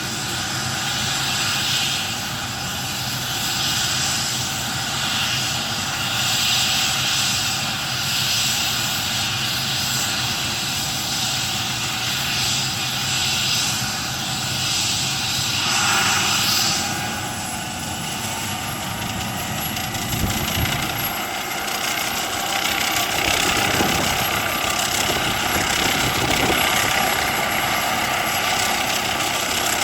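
MD900 Explorer helicopter's twin turbine engines and rotor running steadily, with a whine that rises slightly in pitch about halfway through.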